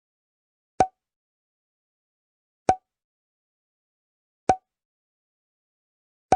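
Bottle cork popping out, repeated: a short sharp pop with a hollow tone about every two seconds, with silence between, four times.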